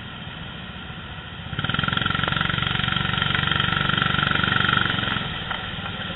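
Go-kart engines running, with a rapid pulsing drone that grows much louder about a second and a half in, holds for three or four seconds and then drops back.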